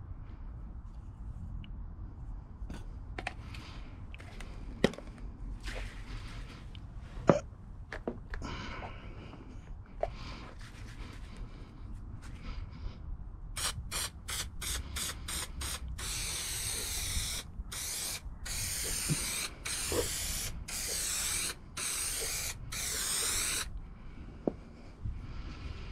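Aerosol can of spray adhesive hissing, first in a quick string of short squirts and then in longer sprays with brief gaps, coating a ply panel for carpeting. Before the spraying, a couple of sharp knocks and light handling rustles.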